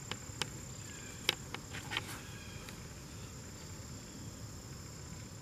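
Crickets singing: a steady, continuous high-pitched chorus, with a few sharp clicks in the first two seconds.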